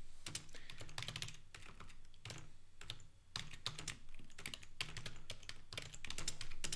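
Typing on a computer keyboard: runs of quick keystrokes with a short pause about halfway through.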